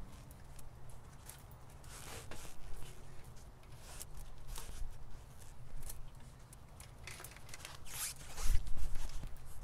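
Irregular rustling, scraping and light clicks of motorcycle control cables and metal parts being handled, growing louder with a scuffle near the end.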